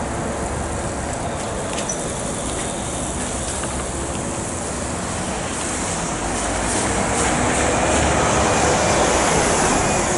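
Articulated electric trolleybus passing close and pulling away, with road traffic. The running noise grows louder about halfway through.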